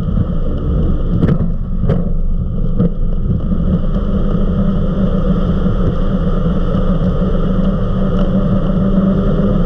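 Eliminator 31 XO Speedster powerboat running at about 60 mph: a loud, steady engine drone with wind and water rush, and a few sharp knocks about one to three seconds in.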